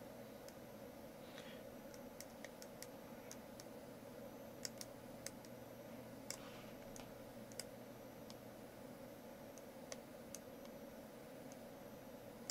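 Faint computer mouse clicks at irregular intervals, from mouse-button presses while painting with a brush in an image editor, over a steady low hum.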